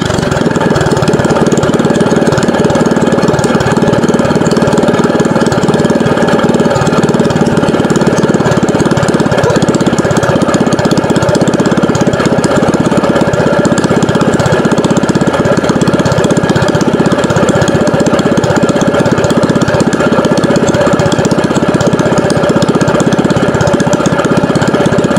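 Small air-cooled single-cylinder gasoline pump-boat engine running steadily, on its own on the ground. The owner takes its steady running as an improvement in an engine that would not start without the choke.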